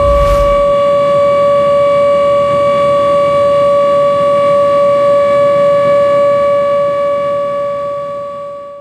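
Ship's horn sounding one long, steady blast at a single unwavering pitch, fading away near the end.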